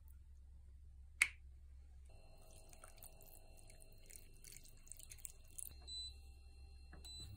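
A single sharp plip about a second in, then clear liquid poured from a glass splashing over fish and napa cabbage in a pot for a few seconds. Two short electronic beeps from the induction cooktop's buttons near the end.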